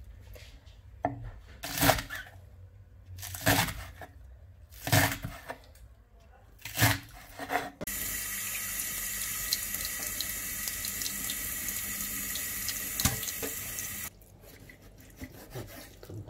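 A tap running into a stainless-steel kitchen sink for about six seconds and then shut off, as slices of raw beef are rinsed under it. Before it, about four separate knife strokes on a wooden cutting board through chopped spring onions.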